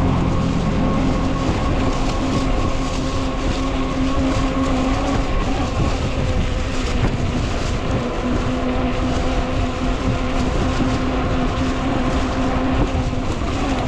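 Ecotric 20-inch folding fat-tire e-bike under way: a steady whine from the motor and fat tyres running over wet pavement, with rough wind noise. The whine dips briefly about halfway through.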